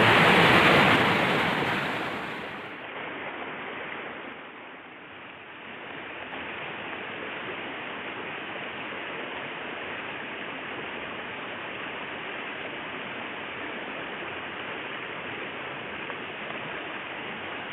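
Steady rushing of water flowing in a small ditch. Louder for the first couple of seconds, then dropping to an even, lower level.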